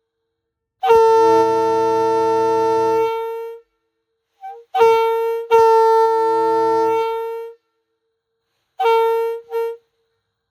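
Leslie RS2M air-powered train horn sounding a steady chord in separate blasts: a long blast about a second in, a brief toot and a second long blast in the middle, then two short toots near the end. Each long blast fades away as it ends.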